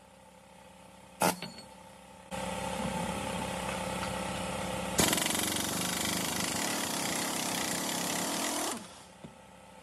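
Heavy pneumatic impact wrench on a truck suspension nut: a metallic clink about a second in, then the wrench runs for about six seconds, getting louder and harsher about halfway through, and winds down near the end.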